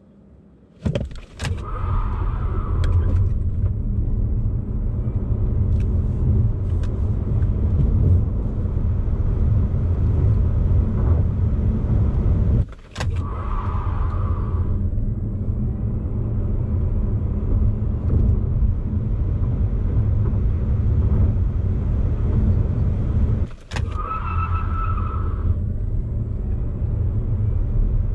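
Cabin sound of a Genesis Electrified G80, a dual-motor electric car, launching hard from standstill with its active sound design off: steady low road and tyre rumble builds with speed under a faint rising electric-motor whine, with no engine note. It breaks off twice, each time starting again from a standstill launch, with a brief higher hiss for the first couple of seconds of each run.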